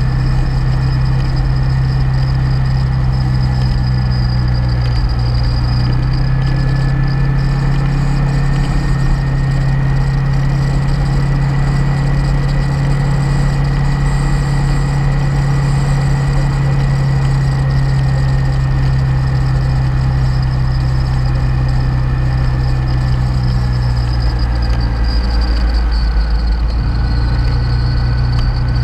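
Motorcycle engine running at a steady cruise, with a constant rush of wind and road noise. Near the end the engine note dips briefly, then steadies again.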